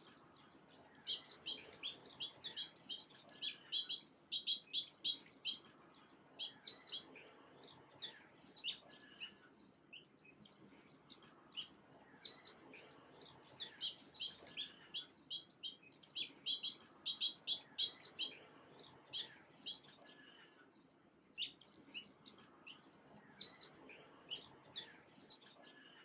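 Small songbirds chirping in quick runs of short, high notes, in bouts that come and go, over a faint background hiss.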